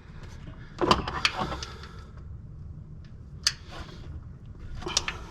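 Irregular knocks and clinks of hand tools and parts being handled: a cluster about a second in, a single one midway and another cluster near the end, over a faint steady low hum.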